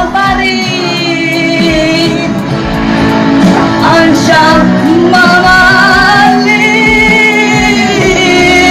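Background music: a singer holding long, wavering notes over a steady accompaniment.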